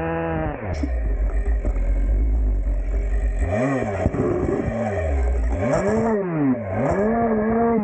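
Husqvarna two-stroke chainsaw. Its steady run breaks off about half a second in, over a heavy low rumble, and then the engine is revved up and back down three times.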